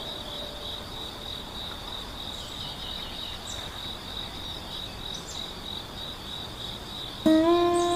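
Grass insects such as crickets trilling steadily in a continuous high-pitched chorus. Near the end a loud sustained musical tone with overtones comes in suddenly.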